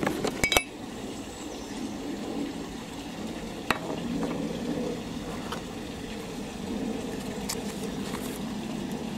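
Small items being handled and set down on a garden table: a quick cluster of sharp clicks and knocks at the start, a single click a few seconds later and a couple of faint ones near the end, over a steady low background noise.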